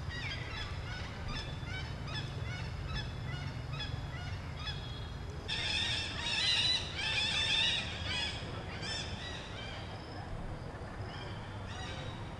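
Many short, high-pitched animal calls overlapping one another, swelling into a louder burst of calls about halfway through.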